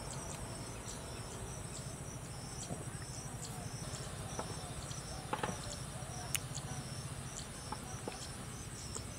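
Insects, crickets by the sound, chirping in a high, evenly repeating pattern. A few sharp clicks and taps from the toppings being spooned and sprinkled onto the bread stand out midway, the loudest about five and six seconds in.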